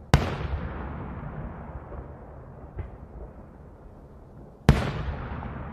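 Two loud bangs of daytime fireworks shells bursting in the air, about four and a half seconds apart. Each is followed by a long echo that dies away slowly, with a few faint pops in between.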